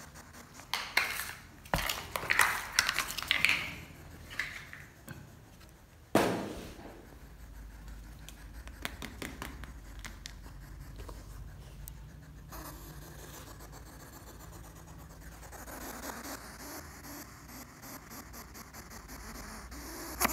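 Scratchy rustling and clicking in a cluster over the first few seconds, a single sharp knock about six seconds in, then a low steady hum.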